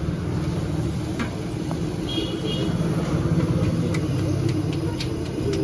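Puris deep-frying in a large kadhai of hot oil, over a steady low rumble, with a few sharp clicks near the end.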